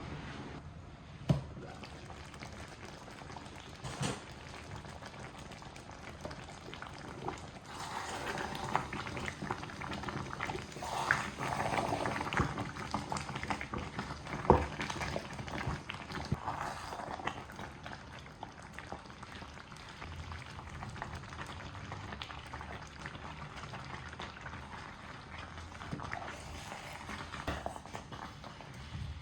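Liquid bubbling and sloshing in a cooking pot, with a few sharp knocks.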